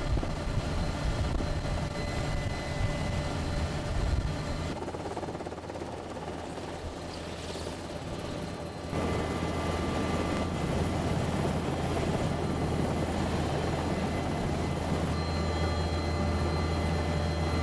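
NH90 transport helicopter running, its rotor and turbine noise continuous through several edits. From about halfway it settles into a steady, heavy low drone.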